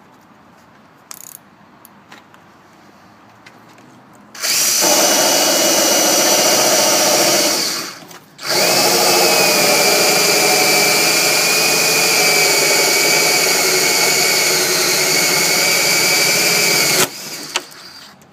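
Electric drill with the smaller bore bit cutting a hole through a wooden door. After a few light clicks, the drill runs steadily with a whine for about three seconds, stops briefly, then runs again for about eight seconds before cutting off.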